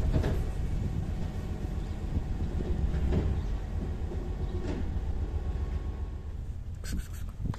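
Cats chewing and eating wet food from a paper plate, with a steady low rumble underneath. A quick cluster of clicks comes about seven seconds in.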